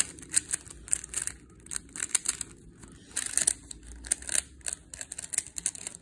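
Plastic 3x3 Rubik's cube being scrambled by hand, its layers twisted quickly in a rapid, irregular run of clicks and clacks.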